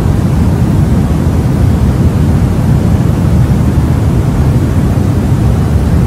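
Continuous baby-soothing white noise: a steady, even rush with no breaks, most of its weight in the low end and thinning toward the high end.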